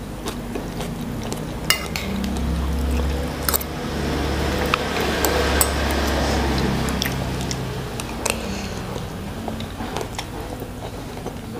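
Close-up eating sounds: chewing and wet mouth sounds from a meal of rice and beef soup, with a metal spoon and fork clinking and scraping against a ceramic plate several times.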